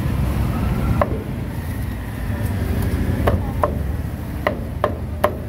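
Meat cleaver chopping through a roast duck on a round chopping block: about six sharp single chops at uneven intervals, one about a second in and the rest bunched in the second half, over a steady low background rumble.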